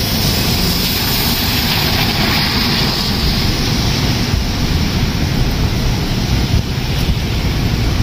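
Gusty wind buffeting the microphone in a rumbling roar over a steady hiss of rain.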